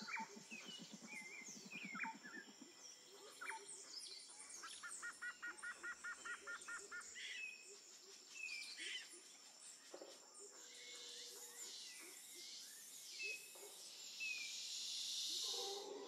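Outdoor ambience of several birds calling and chirping, over a steady high-pitched tone. In the middle comes a quick run of about a dozen evenly spaced notes, and a hiss grows louder near the end.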